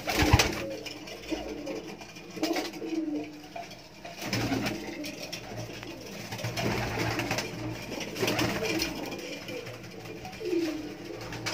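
Domestic pigeons cooing over and over, the low rolling calls coming every second or two, with a loud brief thump right at the start.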